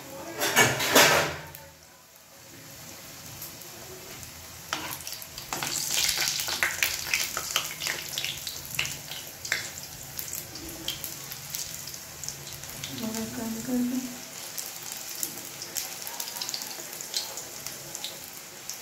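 A potato-and-pea puri (khasta) deep-frying in hot oil in a small wok: steady sizzling and crackling that grows denser about five seconds in, with a spoon pressing the puri and stirring the oil.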